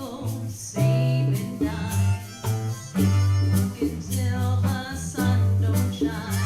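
Live small-band music with guitar and percussion playing a passage with no sung words.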